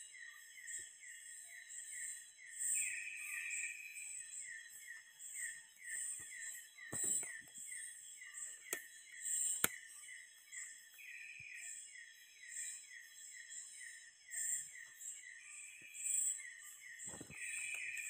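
Night forest insect chorus: a rhythmic chirping at about four chirps a second, with higher pulsing trills and steady high buzzing above it. A few brief crackles about 7 and 17 seconds in, and two sharp clicks around 9 seconds.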